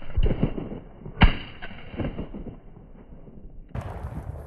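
A single loud shotgun shot about a second in, fired at a flushed game bird, with lesser knocks around it and a hissing noise rising near the end.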